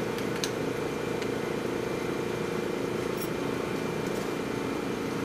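Steady mechanical hum of running lab equipment, with a few faint small clicks as items are handled on the work surface.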